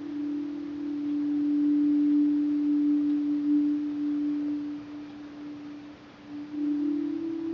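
Meditation drone of a sustained pure tone, held steady, dipping about six seconds in before a slightly higher tone comes in.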